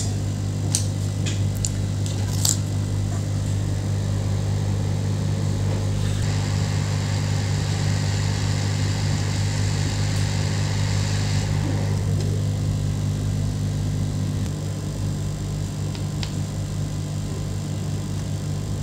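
Steady low hum of a hot-air rework station, with a hiss of blowing air starting about six seconds in and stopping about five seconds later while a burnt chip is desoldered from the SSD's circuit board. A few light clicks come near the start, and the hum drops in level about fourteen seconds in.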